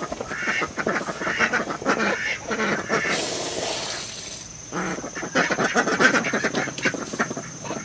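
Ducks quacking over and over. About three seconds in, water is tipped out of a poultry waterer and splashes onto the ground for a second or two.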